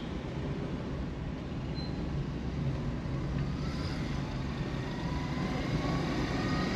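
Car driving along a road: steady low engine and tyre rumble, growing slightly louder toward the end, with faint rising tones in the second half.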